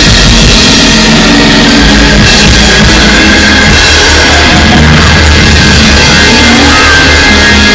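Loud up-tempo church praise music, a drum kit and bass driving a fast, steady beat under sustained instrument notes.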